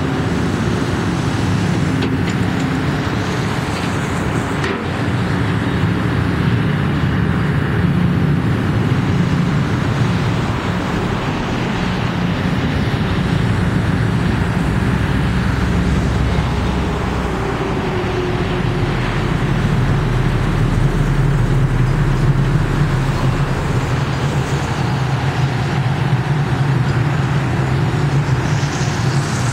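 Daewoo (Doosan) tracked excavator's diesel engine running steadily while its hydraulics swing the upper structure and move the boom. The low engine note shifts about halfway through.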